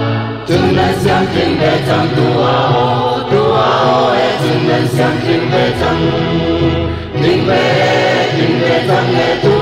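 A group of voices singing a Chin traditional song together over instrumental accompaniment, with steady low notes underneath and short breaks between phrases.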